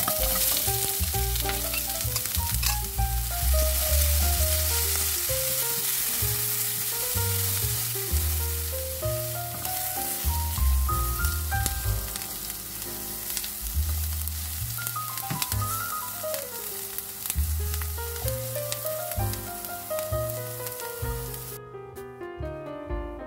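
Sliced onions sizzling as they fry in hot oil in a nonstick frying pan, stirred now and then with a spatula. The sizzling cuts off near the end.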